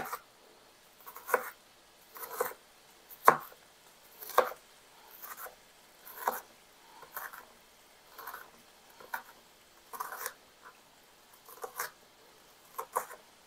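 Chef's knife chopping onion on a plastic cutting board: short clusters of knocks on the board, roughly once a second.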